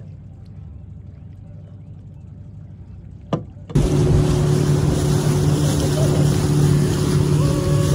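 Motorboat engine under way with the wake rushing and wind on the microphone, starting suddenly about halfway through. Before it there is a quieter stretch of low engine hum and a single click.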